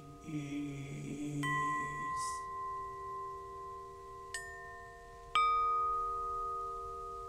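A low chanting voice that fades out about two seconds in, while struck bells ring out three times, each tone ringing on for seconds. The third strike, about five seconds in, is the loudest.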